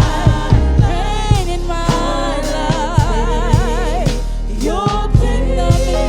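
Gospel worship song: a voice sings wavering, drawn-out notes over a steady bass and regular drum hits.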